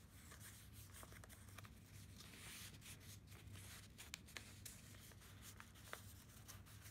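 Faint rustling of paper being handled, with a few light ticks, as a paper tag and a small card tag are slid into a paper pocket in a handmade journal.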